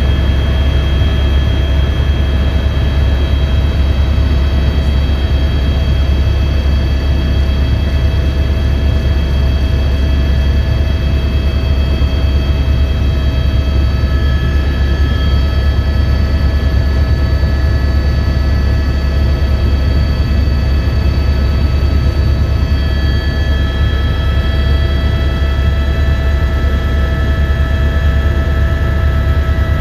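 Helicopter turbine and rotor heard from inside the cabin: a loud, steady low drone with a constant whine over it. A further higher whine joins about halfway through.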